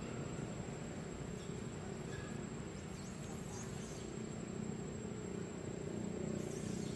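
A steady, high-pitched insect trill, like a cricket, holding one pitch throughout, over a low, even background rumble.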